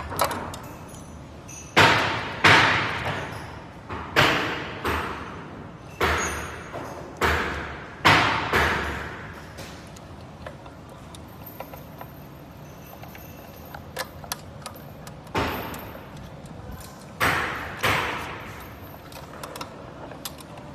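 A series of sharp knocks and clatters from hard parts or tools being handled during disassembly, each with a short ringing tail. They come in two irregular clusters, with a quieter gap of small ticks between.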